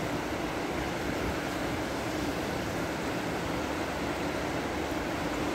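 Fast mountain river rushing over rocky rapids, a steady rush of water.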